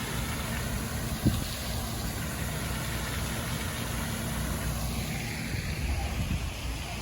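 Road vehicle engine idling, a low steady rumble, with a short knock about a second in and a hiss swelling near the end.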